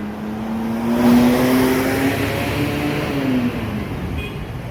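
Bus engine accelerating, its pitch climbing for about two seconds and then dropping a little after three seconds in, with tyre and engine rumble underneath.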